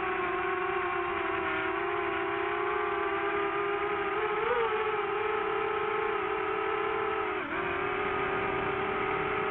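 DJI FPV drone's motors and 5x4.5 bullnose propellers whining in flight, a steady tone with overtones. The pitch rises briefly about four and a half seconds in and dips sharply about two seconds before the end as the throttle changes.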